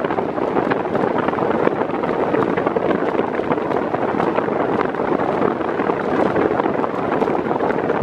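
Britânia Turbo B400 40 cm fan running at high speed: a steady rush of air from the blades, buffeting the microphone.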